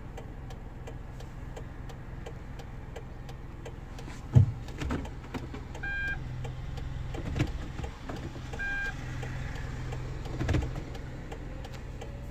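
Inside a Kia Morning with a steady low hum, likely the engine idling, and faint, fast, even ticking. A loud knock comes about four seconds in, then two short electronic beeps about three seconds apart, with further knocks from handling.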